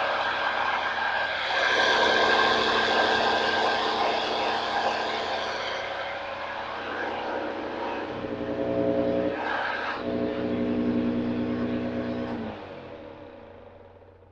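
Hoover Junior upright vacuum cleaner running with its motor-driven beater bar spinning, a steady, loud motor hum. Its tone shifts about eight seconds in, with a brief dip near nine and a half seconds. Near the end it is switched off and winds down.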